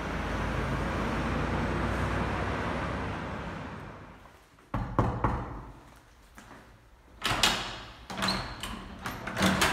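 A car passes on a city street, its noise swelling and fading away over the first four seconds. Then come sharp clicks and knocks at a wooden apartment door, a few at first and a denser run of rattling clicks near the end, as its lock and handle are worked.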